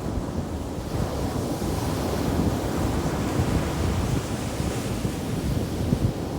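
Ocean surf breaking and washing up a beach, a wave's hiss swelling about a second in and fading near the end. Wind buffets the microphone throughout with a low rumble.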